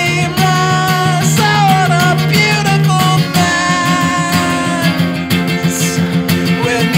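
Background music: a guitar-led song.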